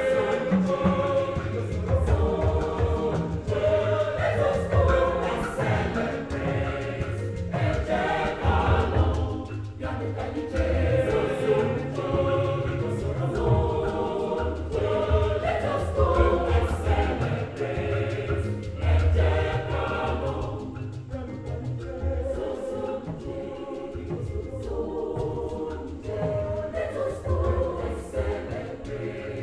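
Mixed choir of men and women singing in parts, with a low bass line underneath.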